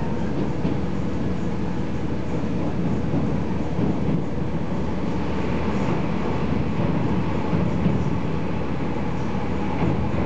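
Steady running noise heard inside a KiHa 40 series diesel railcar under way.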